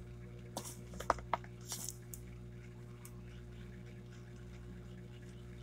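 A few light taps and a short scrape of a crayon on paper in the first two seconds, then only a steady low hum.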